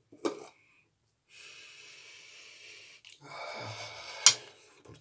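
A man sniffing shaving soap: a long, steady breath in through the nose lasting about a second and a half, then a second, fuller breath. About four seconds in there is a single sharp click.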